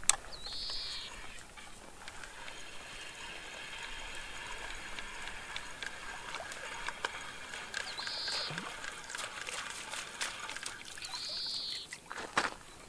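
Spinning reel being wound steadily, a whirring with light ticking, as the feeder is retrieved after a groundbait cast. A bird calls briefly three times, and a couple of sharp knocks come near the end as the feeder is lifted clear of the water.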